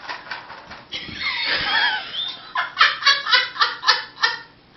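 A person laughing out loud: a high drawn-out squeal of laughter about a second in, breaking into a quick run of short ha-ha bursts, about five a second, in the second half.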